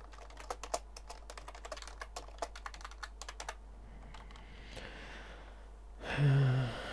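Computer keyboard typing: a quick run of key clicks for about three and a half seconds, then a pause. A short bit of voice near the end is the loudest sound.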